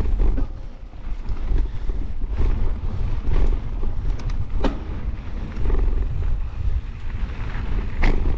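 Mountain bike riding fast over a dry dirt trail: wind buffets the camera microphone and the knobby tyres rumble over the ground. A few sharp knocks and rattles come from the bike over bumps, the loudest near the end.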